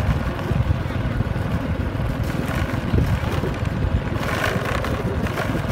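Motorbike running as it is ridden along, with a low rumble of wind buffeting the microphone.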